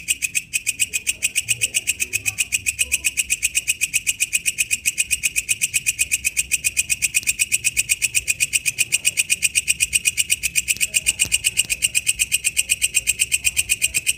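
Walang kecek, an Indonesian katydid, calling: a steady, fast train of sharp, high-pitched chirps, about seven a second, without a break.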